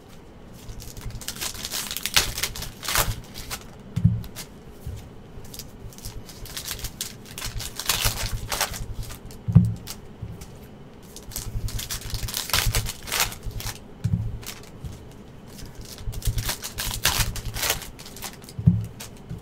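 Hands working open a sealed cardboard trading-card box: irregular clicking, scraping and crinkling of cardboard and wrapper, with a few low thumps.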